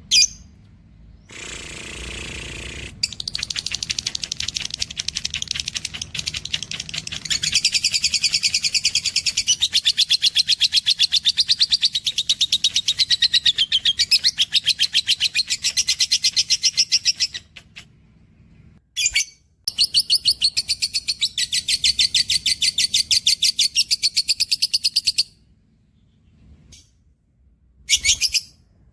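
Caged pet bird singing a long, fast, evenly pulsed high trill that runs for about fourteen seconds. After a short break a second bout of about six seconds follows, and a few short high calls come near the start and the end.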